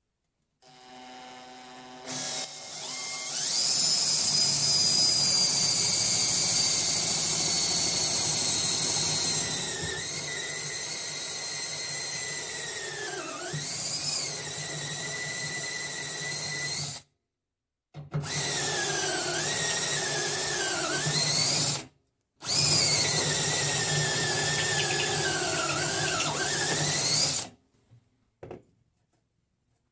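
Cordless drill with a step drill bit cutting a bolt hole through a sheet-steel TV mount bracket. It makes one long run of motor whine and cutting squeal of about sixteen seconds, then two shorter runs of about four and five seconds. The squeal dips and wavers in pitch as the bit bites.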